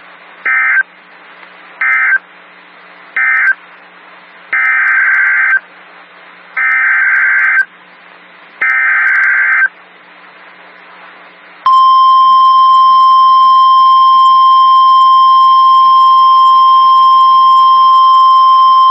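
NOAA Weather Radio SAME data bursts: three short end-of-message bursts, then three longer header bursts about a second each, signalling the start of a new warning. About twelve seconds in, the steady 1050 Hz warning alarm tone begins and holds loud and unbroken.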